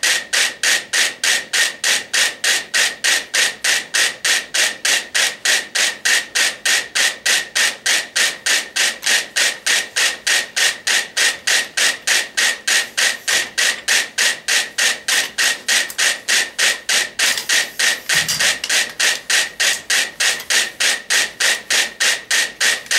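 About a hundred mechanical metronomes ticking together as one, a sharp click about three times a second. They are synchronized: the hanging board they stand on rocks with them and pulls them into step. A soft thump about 18 seconds in.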